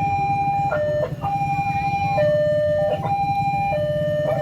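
Railway level-crossing warning alarm sounding a two-tone electronic chime, stepping back and forth between a higher and a lower note. The notes are held for uneven lengths and broken by clicks, a glitching, stuttering alarm ('batuk-batuk', coughing). A steady low rumble runs underneath.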